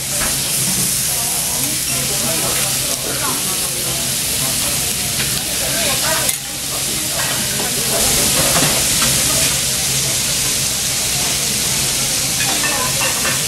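Kobe beef steaks sizzling on a hot steel teppanyaki griddle: a steady frying hiss that drops briefly about six seconds in and runs louder from about eight seconds.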